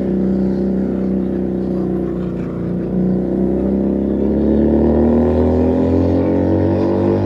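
Keeway SCR 250 motorcycle with a Rez Speed aftermarket exhaust, ridden in gear. The engine note holds steady, then rises smoothly as it accelerates from about a third of the way in, and stays up near the end.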